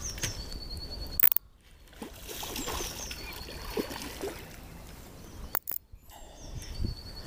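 Water sloshing and splashing as a hooked pike thrashes at the surface while it is played on a lure rod, with a sharp knock about a second in and a brief crackle later.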